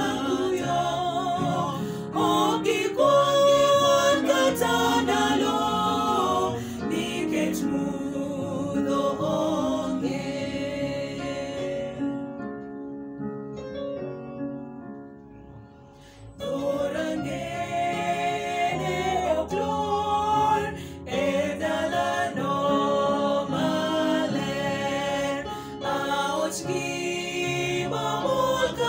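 A small mixed group of three women and a man singing a hymn unaccompanied. The singing grows soft and thin just before the middle, then comes back at full strength a few seconds later.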